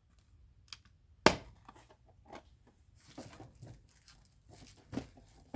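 Desk handling sounds of a folding knife: one sharp click a little over a second in, then faint rustling and scattered small clicks.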